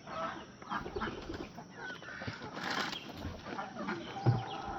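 Chickens clucking and calling in short scattered notes, with a single thump about four seconds in.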